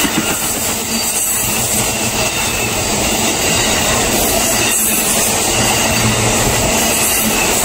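Amtrak Auto Train's bilevel Superliner passenger cars passing close at speed: a steady, loud rush of steel wheels on the rails.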